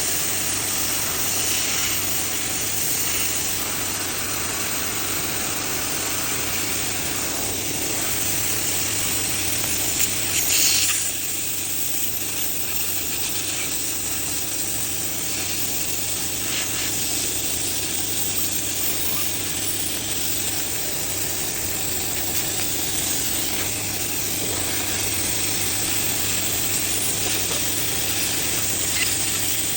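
KLM Pulse 300W pulsed laser cleaner running: a steady hiss over a low hum, with a brief louder burst about ten seconds in.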